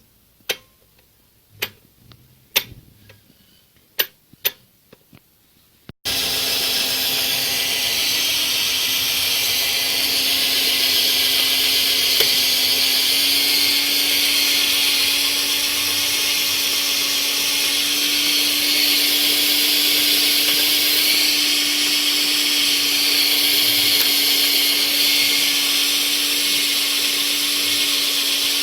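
A few sharp clicks, then about six seconds in a homemade metal lathe starts up abruptly and runs steadily: a constant hum with one steady tone and a dense high whirring hiss of motor and gears.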